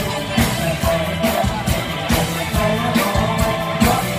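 Live Isan mor lam toei dance music played by a band, with a steady drum beat and singing.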